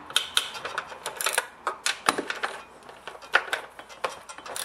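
Hand socket ratchet clicking in irregular runs of sharp clicks, with a few metal taps, as the 13 mm nuts holding the recoil starter housing are tightened.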